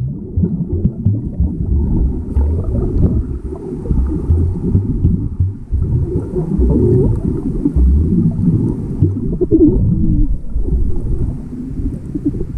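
Muffled underwater churning and rumbling of moving water, heard through a camera's waterproof housing while swimming, with a brief squeak about three-quarters of the way through.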